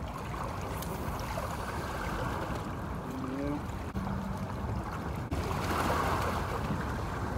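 Steady wash of seawater lapping at the shore.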